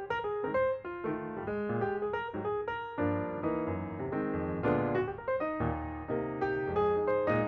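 Background piano music: single notes and chords struck one after another, each fading away, growing fuller about three seconds in.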